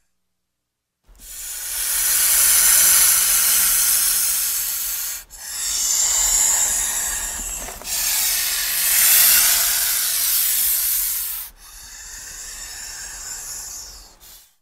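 Snake hissing: four long hisses, each a few seconds, one after another with short breaks, and a brief one near the end.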